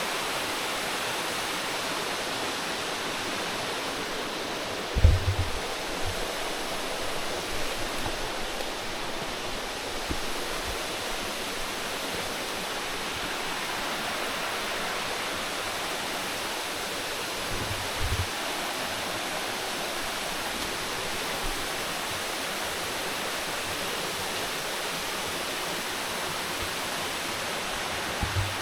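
Steady rush of flowing water, even and unbroken, with a few dull low thumps, the loudest about five seconds in, another near the middle and one at the very end.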